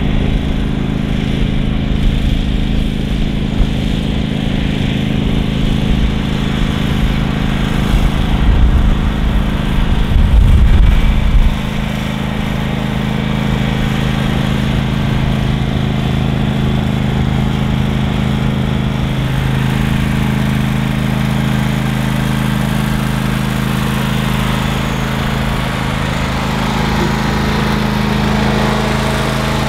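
Engine of a John Deere hydrostatic riding lawn tractor running steadily as the tractor is driven along. A heavier low rumble comes in about eight seconds in and lasts about three seconds.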